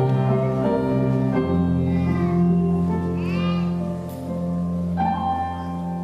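Slow music with held instrumental notes under a singing voice, which curves through a phrase about three seconds in.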